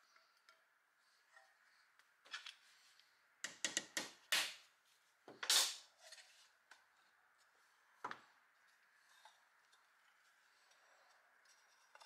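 Metal housing of a vintage Sears Kenmore hair dryer being handled and worked apart by hand: a quick run of metallic clatters and scrapes a few seconds in, the loudest a longer scrape about halfway through, then a single knock.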